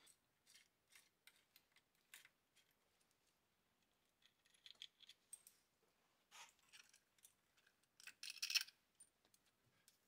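Faint, scattered clicks and light metal taps from parts being handled on a metal lathe's cross slide, with a short louder clatter near the end.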